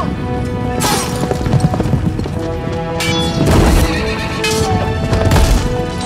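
Film battle soundtrack: a musical score over horses neighing and hooves, with heavy crashes and thuds of fighting coming in surges.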